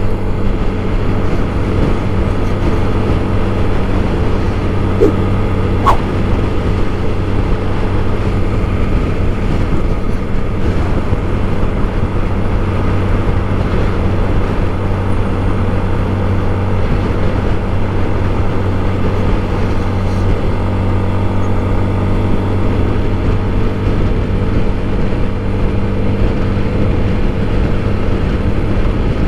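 Honda XRE 300 single-cylinder motorcycle engine running at a steady cruising speed, its pitch unchanging, under a constant rush of wind and road noise.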